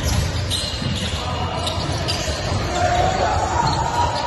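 Basketball game on a hardwood gym court: the ball bouncing, a brief high sneaker squeak about half a second in, and players' voices, all echoing in a large hall.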